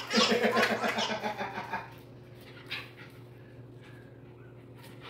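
Wobble Wag Giggle Ball's noisemaker giggling as the ball rolls: a quick run of warbling pulses, about seven a second, lasting about two seconds and then stopping.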